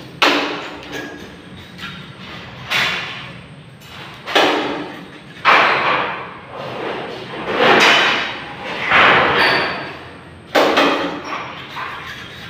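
Thin galvanized iron sheet metal thudding under a series of knocks, seven in all at uneven intervals of one to two seconds, each trailing off quickly.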